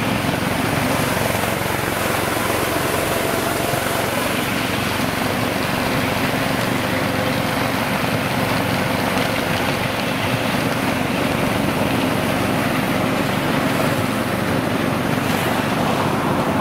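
Ride-on miniature railway train running steadily along its track, a continuous even rumble of wheels on rails and running gear heard from a carriage.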